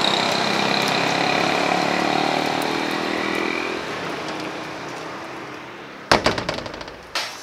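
Steady rain falling outdoors, fading away over the first few seconds. About six seconds in, a glass sliding door rattles shut with a loud clatter, followed by a second knock a second later.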